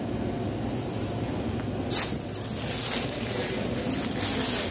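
Thin plastic carry-out bag rustling and crinkling as it is handled, starting sharply about two seconds in and continuing in irregular crackles, over a steady low hum.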